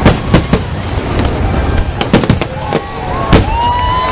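Fireworks display: a quick run of sharp bangs, roughly eight in four seconds, over a rumbling background. In the last second and a half a wavering, shifting whistle joins the bangs.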